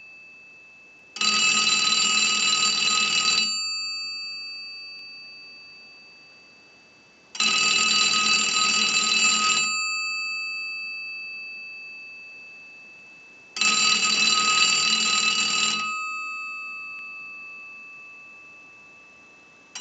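Automatic Electric three-slot payphone's bell ringer ringing in about two-second bursts roughly six seconds apart, each ringing out slowly before the next; a fourth ring begins at the very end. It is a test ring cycle from a line analyzer, showing the payphone rings in on an incoming call.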